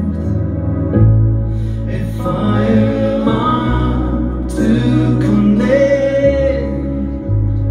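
Live band music: keyboard playing slow, held bass notes that change every second or two, with voices singing over them.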